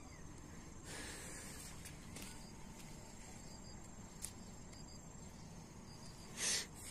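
Crickets chirring faintly and steadily in a thin high tone. A few soft hissy noises come and go, and a short louder burst of noise comes near the end.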